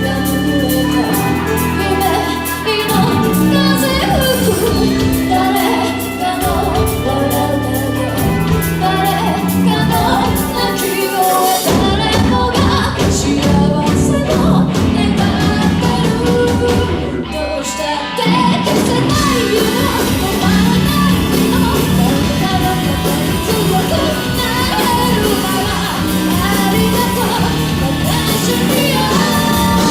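Live band playing amplified music with a singer. The low end drops out briefly twice partway through, then the full band comes back in.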